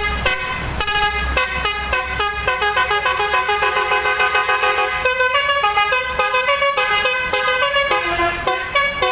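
Indonesian 'telolet' bus horn with twelve trumpets playing a quick tune of short, stepping notes, several pitches sounding together. A low rumble runs underneath for the first couple of seconds.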